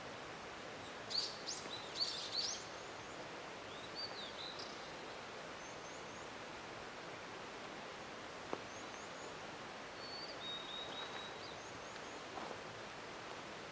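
Blue-and-white flycatcher singing: a loud burst of quick, high notes about a second in, a few softer notes a little later, and another phrase ending on a held high note near the end, over a steady hiss.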